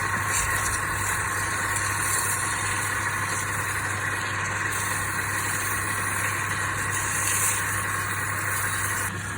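Wood lathe running steadily with a constant motor hum, and a hiss that swells and fades several times.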